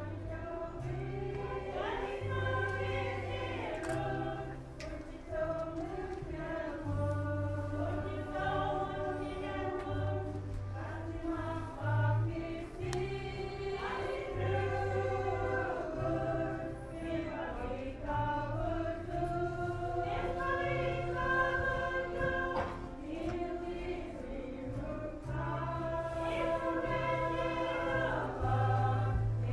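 Group of voices singing a gospel hymn in Inupiaq, a translated song, over a low bass line whose notes change about once a second.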